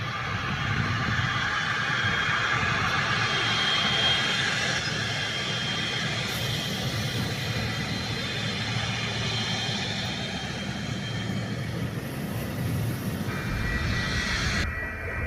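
Jet airliner engines running: a steady rushing noise with a thin high whine over a low rumble, changing abruptly near the end.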